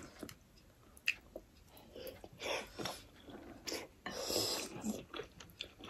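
Close-up mouth sounds of people biting into and chewing pork momos (steamed dumplings). The bites and chews come irregularly, with a louder stretch a little past halfway.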